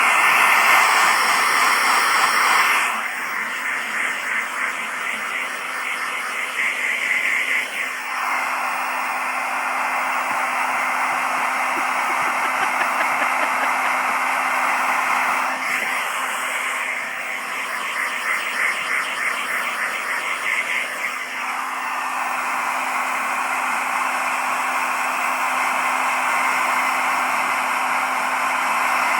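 Hair dryer running: a loud, steady rushing blow with a faint hum under it. Its tone shifts several times, with fluttering stretches in between.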